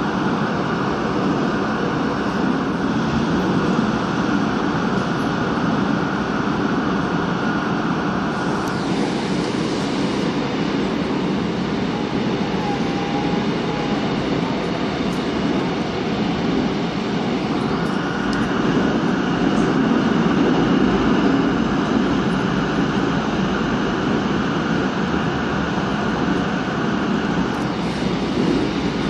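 Busan Metro Line 3 train running through a tunnel: a steady rumble of wheels on rail and running gear.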